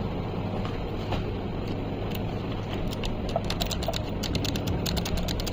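A steady low electrical hum, with light sharp clicks and ticks starting about two seconds in and coming thicker toward the end, like small parts being handled.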